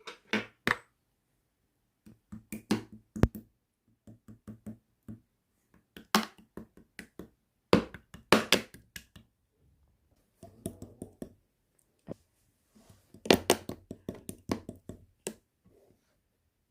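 Slime being squeezed and pressed by hand, giving bursts of sticky clicks and small pops in bouts of a second or two, with short pauses between.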